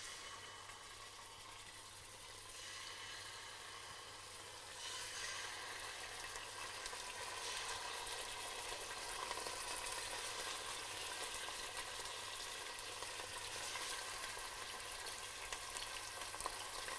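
Pukeko thighs sizzling as they brown in hot olive oil in a stainless steel stockpot, the frying getting louder about five seconds in as more pieces go into the pan.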